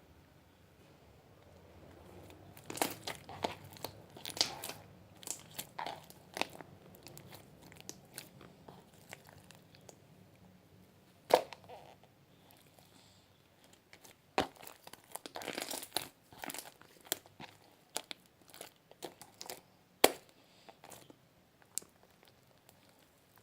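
Slime being squeezed and poked by hand, making irregular crackling, clicking pops in small clusters, with a couple of sharper, louder pops along the way.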